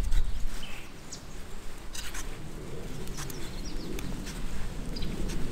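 Handling noise of tarred bank line being wrapped tightly around a green wooden stick: rustling with a few sharp clicks. A few short bird chirps sound behind it.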